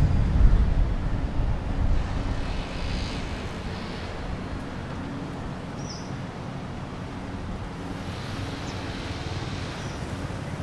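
Wind buffeting the microphone for the first two seconds, then a steady low hum of background noise with faint steady tones in it. A single short high chirp sounds about six seconds in.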